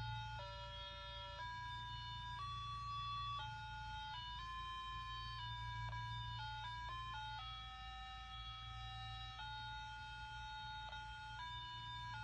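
Pocket talking calculator's built-in melody playing: a single line of electronic beep tones stepping from note to note, some notes held for a second or more.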